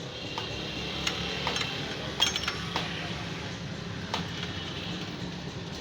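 Scattered metal clinks and taps, some with a short high ring, from fitting a steel exhaust bend pipe onto a 70cc motorcycle, over a steady low hum.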